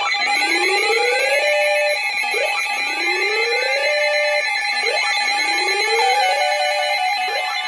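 Electronic emergency-alert alarm: a whooping tone that rises in pitch and holds briefly at the top, repeating about every two and a half seconds over steady high tones.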